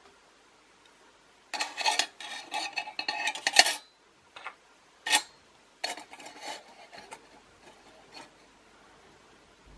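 Thin sheet-metal plate scraping and clinking against a titanium mug and its wire handles as it is fitted into place: a bout of rattling about one and a half seconds in, a single sharp clink about five seconds in, then a shorter bout of rattling.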